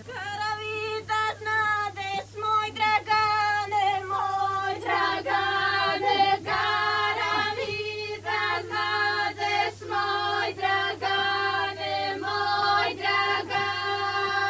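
A group of female voices singing a traditional village wedding song together, in long held notes broken into short phrases.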